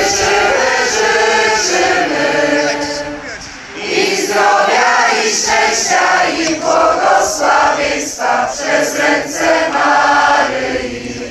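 A large crowd of young men and women singing together in unison, like a choir, in two phrases with a short break about three and a half seconds in.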